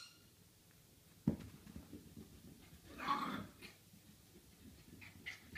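A puppy playing with its ball on carpet: one sharp thump a little over a second in, then faint scuffling and a short rough sound around three seconds in.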